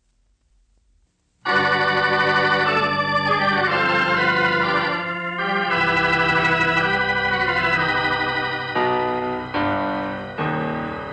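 Organ music bridge for a radio drama, marking a break between scenes. It comes in loud after about a second and a half of silence with held, shifting chords, and three new chords are struck one after another near the end.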